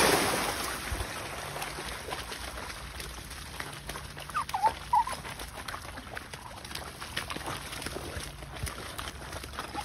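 A dog digging and splashing in a shallow channel of muddy running water: a loud splash at the start fades into steady sloshing and pawing. Two short, high calls come about halfway through.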